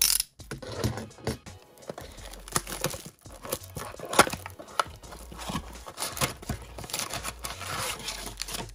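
Plastic shrink wrap crinkling and tearing as it is peeled off a cardboard trading-card box, an uneven run of crackles, with background music underneath.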